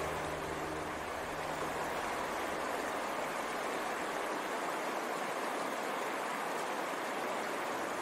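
Steady rushing of a river flowing fast over rocks. The last held notes of soft background music trail off in the first second or two.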